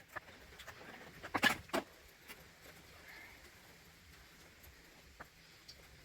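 Light clicks and knocks of hand tools being handled, with two sharper clicks about a second and a half in.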